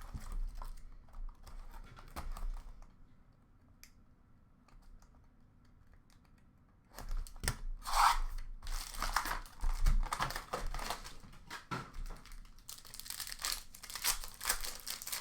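Upper Deck Allure hockey card packs being torn open, their wrappers crinkling. There are a few seconds of rustling, then a lull, then steady tearing and crinkling through the second half.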